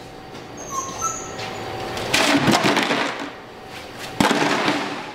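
Plastic rattle jug clattering in two bursts, the second starting with a sharp hit about four seconds in. It is a startle test of a Malinois puppy's nerve. A few brief high squeaks come about a second in.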